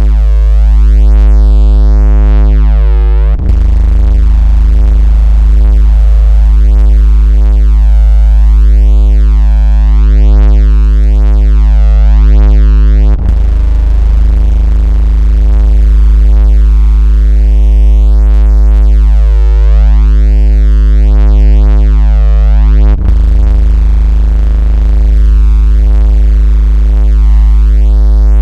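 Loud, steady synthesized 56 Hz vibration tone, a deep buzzing hum rich in overtones, made to set a phone vibrating or push water out of its speaker. It loops with a brief dip and click about every ten seconds, three times here.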